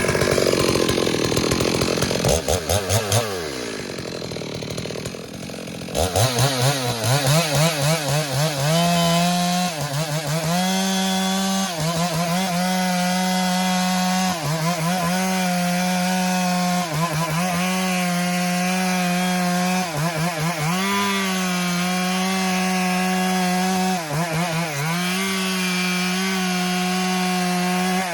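Stihl MS382 two-stroke chainsaw at full throttle, ripping a log lengthwise along the grain. After a few seconds of revving and easing off, it settles into a steady high-pitched note that dips briefly every couple of seconds as the chain bites into the wood.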